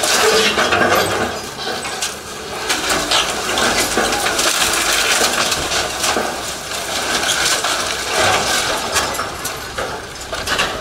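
Concrete, blocks and roofing cracking and clattering down in a continuous crackle of small impacts as a Doosan tracked excavator's bucket breaks into a house, over the steady rumble of the excavator's engine.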